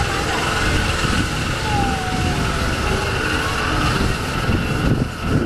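Spinning aeroplane kiddie ride running: a steady mechanical whine over a continuous rushing, rumbling noise, with faint voices in the background.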